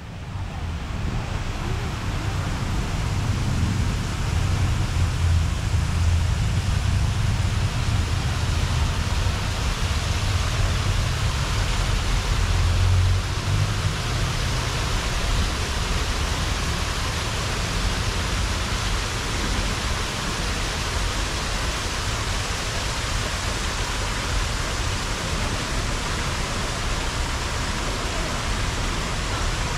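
Steady rushing of a waterfall, with a low rumble that swells now and then. It builds over the first few seconds, then holds.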